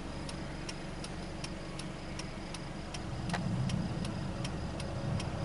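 Car cabin sound while driving: steady engine and road rumble with a crisp ticking repeating evenly at nearly three times a second.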